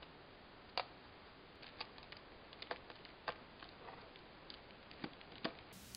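Faint, irregular small clicks and taps of a screwdriver and tiny screws against a MacBook Pro's aluminium bottom cover as the cover screws are put back in.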